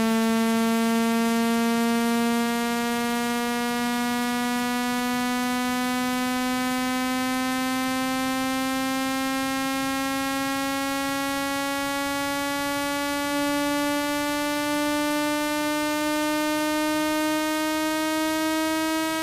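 Electronic speaker-cleaning tone: a buzzy hum rich in overtones, played continuously and rising slowly in pitch throughout.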